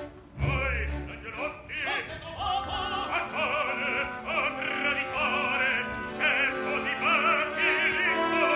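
Operatic singing with a strong vibrato over a sustained orchestral accompaniment, opening with a low boom about half a second in.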